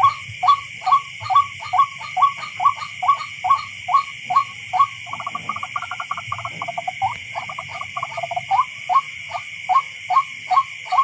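Tikling (rail) calling: a steady series of short, sharp notes, about two to three a second, breaking into a faster chatter in the middle before the even rhythm returns.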